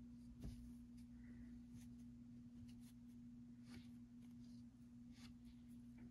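Near silence: a steady low hum of room tone, with a few faint soft clicks and rustles of yarn being worked on a plastic knitting loom, the clearest click about half a second in.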